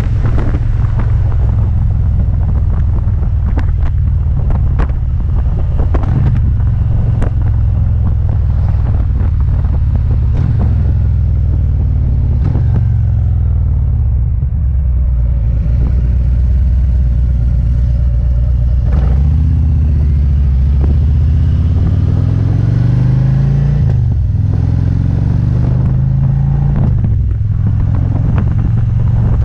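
Touring motorcycle's engine running under way, with wind rushing over the microphone. Around the middle it eases off as the bike slows through a turn, then it accelerates, the engine pitch rising, dropping at a gear change, and rising again.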